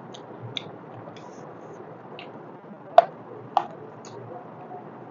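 Close-miked eating by hand: fingers squishing rice and mutton trotter curry on the plate and small wet mouth clicks, with two sharp louder clicks about three seconds in and again half a second later as a handful goes into the mouth.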